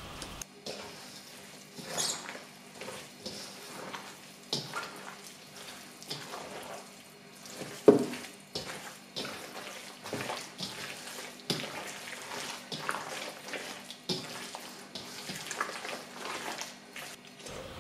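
Wet squelching and squishing of salted napa cabbage being kneaded and turned by hand with chili paste and fish sauce in a stainless steel bowl, in irregular handfuls, one louder squish about eight seconds in.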